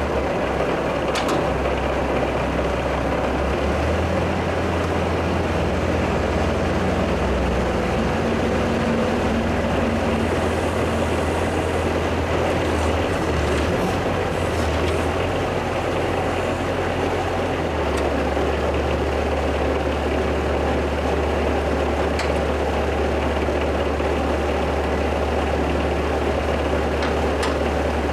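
Bobcat 763 skid steer's diesel engine running steadily, its speed shifting a few times, about four seconds in and again past the middle. A few faint clicks sound over it.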